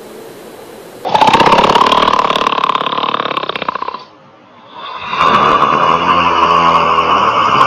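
A small boy screaming at the top of his voice in two long bouts, with a break of about a second around four seconds in.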